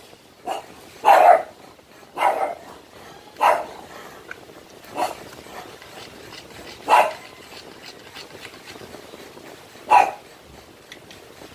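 A dog barking: about seven short single barks at uneven intervals, a second or more apart.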